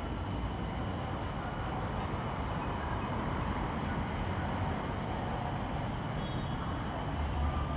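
Steady outdoor urban background noise: a low rumble with an even hiss over it.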